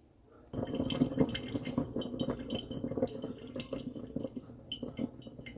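Coffee maker starting to brew into a ceramic mug: coffee spatters and trickles into the cup with the machine's gurgling, starting suddenly about half a second in and slowly easing off.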